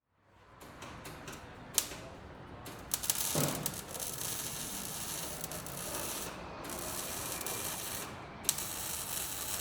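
Auto repair shop ambience: hand tools working, with ratcheting and mechanical clicking and a few sharp clicks over a steady hiss that grows fuller about three seconds in.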